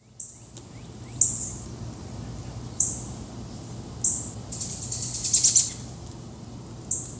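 Short, high bird-like chirps, each starting sharply and fading quickly, come every second or two. About two-thirds of the way in there is a rapid fluttering trill. A low steady hum lies under them.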